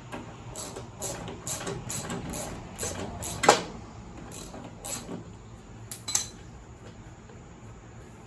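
Socket ratchet clicking as it backs off the nuts on a mower deck's belt guard: a run of sharp clicks about two a second, then two more a few seconds later.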